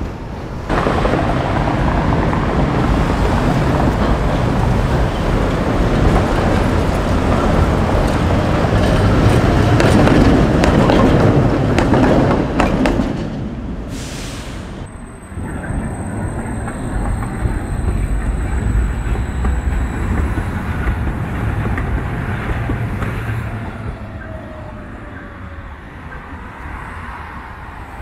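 A tram running along street track, its rumble swelling to a peak and then dying away, followed by quieter street traffic noise with a thin high whine for a few seconds.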